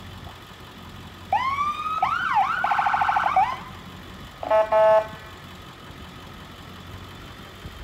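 Ambulance siren sounded in short bursts: a few rising-and-falling wail sweeps, about a second of rapid warble, then a brief horn blast about four and a half seconds in.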